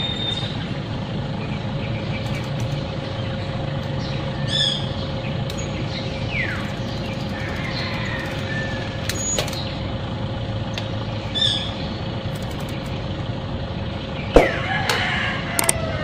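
Steady outdoor traffic hum with a few short bird chirps, and a sharp click near the end.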